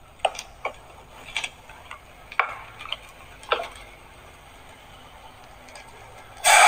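Agathi leaves and onions frying in hot oil in a nonstick saucepan, with scattered sharp pops over the first few seconds. Just before the end a loud, even hiss starts suddenly as coconut milk is poured into the hot pan.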